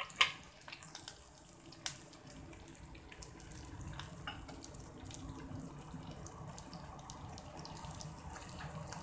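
Curry leaves and dry red chillies sizzling in hot coconut oil in a small tempering pan, a steady hiss full of scattered crackles and pops, with a couple of sharper pops in the first two seconds.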